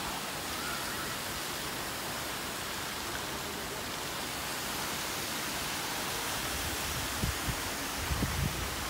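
Steady rushing hiss of a fountain jet spraying and splashing into a pond, with a few short low thumps near the end.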